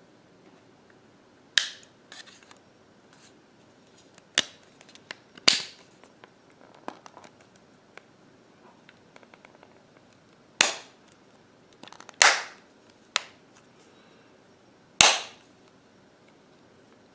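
The back cover of a Microsoft Zune 30GB media player is being pressed back onto the case, its clips snapping into place in a series of sharp snaps. There are about seven loud snaps at irregular gaps of one to four seconds, with faint handling ticks between them.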